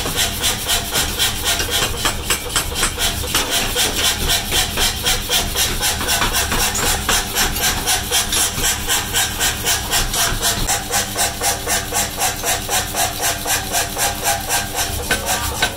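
Mechanical power hammer running with a steady, even knock of about two to three beats a second.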